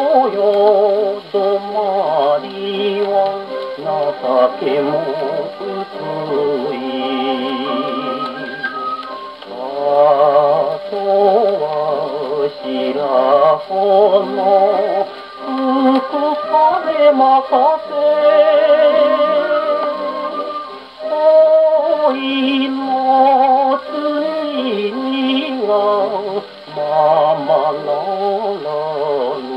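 A 1949 78 rpm Japanese popular-song record playing acoustically on an HMV 102 portable wind-up gramophone: continuous music with a wavering, vibrato-laden melody line, thin-sounding with no deep bass and no high treble.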